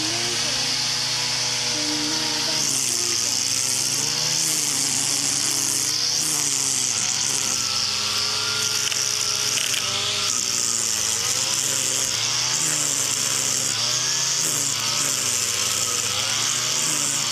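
Gas string trimmer running, its small engine pitch rising and falling with the throttle while the line whips through grass with a steady hiss.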